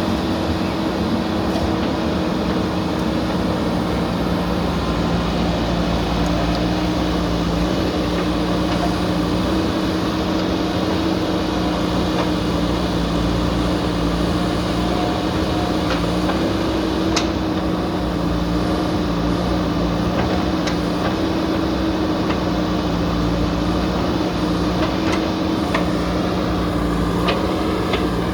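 Diesel engine of a JCB backhoe loader running steadily at a constant speed, with a few faint sharp knocks in the second half.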